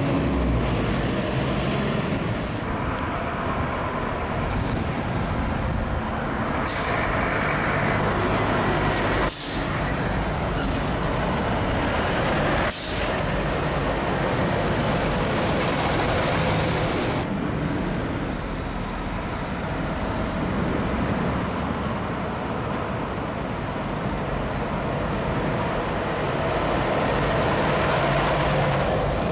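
Scania fire engines driving past one after another, their diesel engines running steadily over road noise. A few short hisses of air brakes come between about seven and thirteen seconds in.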